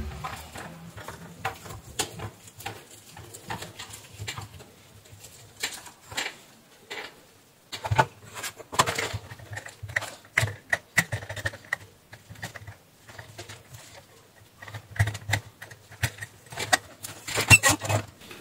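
Irregular clicks, taps and rattles of an insect killer's wire grid cage and plastic housing being handled and taken apart, with a quick flurry of louder knocks near the end.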